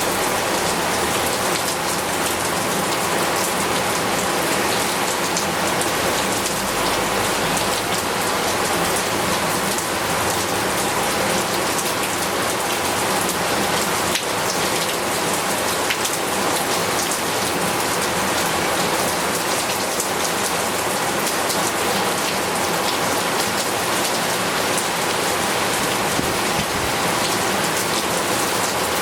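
Heavy rain falling steadily, a dense hiss of many drops hitting a surface.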